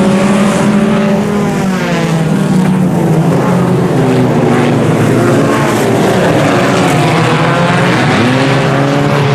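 A pack of IMCA Sport Compact race cars at racing speed, their four-cylinder engines sounding together. Several engine notes rise and fall as the cars lift and get back on the throttle through the turns.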